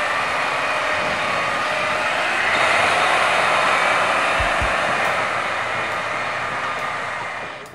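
Pierce tractor-drawn aerial ladder truck with a Detroit Diesel DD13 engine driving past: a steady rush of engine and tyre noise that swells about two and a half seconds in and fades out near the end.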